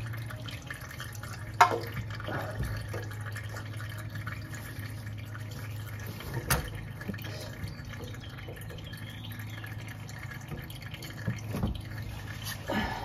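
Engine oil trickling into a drain pan from the open drain hole, with two sharp clicks from the tools being handled, one about one and a half seconds in and one about six and a half seconds in.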